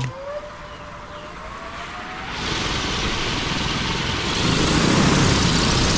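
DJI Agras T40 agricultural spray drone's rotors spinning up for takeoff: a rising motor whine for the first two seconds, then the rushing of the propellers, which grows louder about two seconds in and again about halfway through.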